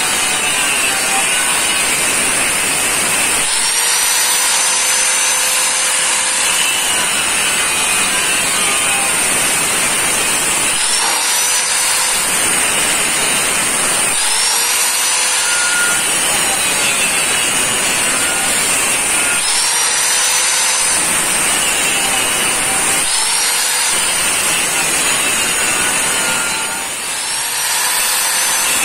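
Angle grinder with a cut-off disc cutting a row of slots into galvanized square steel pipe. It runs loud and steady, and about six times its whine climbs back up and levels off as the disc comes free of one cut before starting the next.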